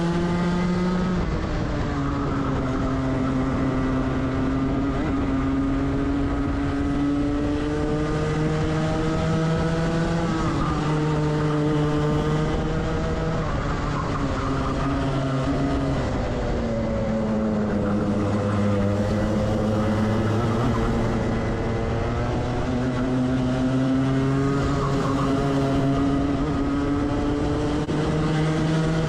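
Rotax 125cc two-stroke kart engine heard onboard at racing speed, its pitch climbing as it accelerates and falling as it slows into corners, several times over. Other karts' engines run close by at different pitches.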